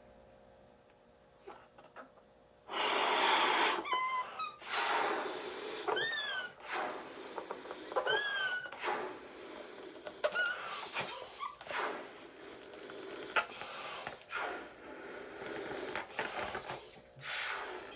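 Large black latex balloon being blown up by mouth, starting about three seconds in: a series of long puffs of breath into it, broken by several short, high squeaks from the balloon's rubber.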